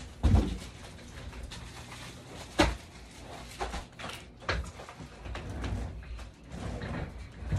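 Unpacking a cardboard box: a few knocks and thumps, the sharpest about a third of the way in, with plastic wrapping rustling between them.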